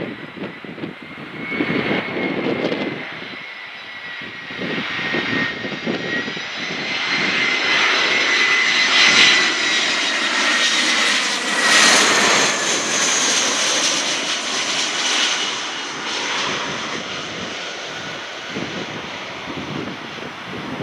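Airliner passing close by, its engines giving a steady whine that sags slightly in pitch over a rising rush of noise. The rush is loudest a little past halfway, then fades. Wind buffets the microphone at the start and near the end.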